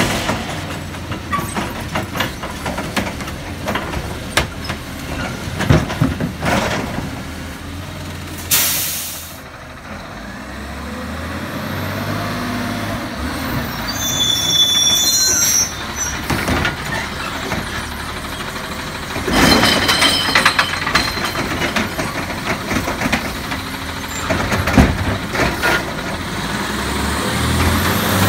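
Garbage truck with a Labrie Automizer automated side-loading arm at work: the arm tipping carts with clanks and knocks over the diesel engine's running. A sharp air-brake hiss comes about a third of the way in, a high squeal near the middle, and another loud rush of air about two-thirds of the way through.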